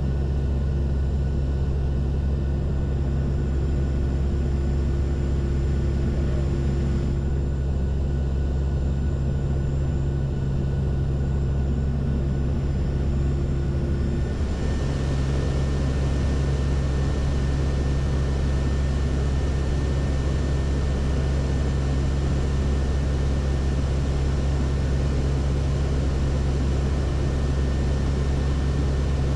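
Steady, loud cabin drone of the NOAA WP-3D Orion's four Allison T56 turboprop engines and propellers, heard from the flight deck in flight. About halfway through a brighter hiss comes into the mix, with a faint high tone.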